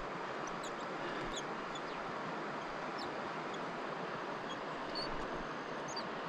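Steady rushing of river rapids, with scattered short, high bird chirps over it.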